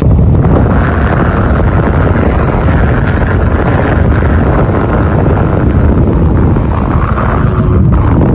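Wind rushing and buffeting on the microphone of a moving motorbike, with the ride's road and engine noise underneath.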